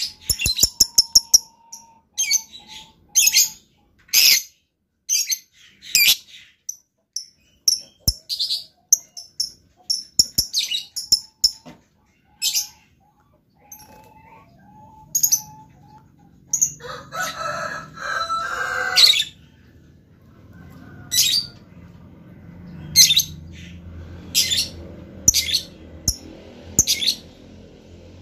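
Lovebird calling in a string of short, sharp, high chirps, with a longer, harsher chattering call about seventeen seconds in.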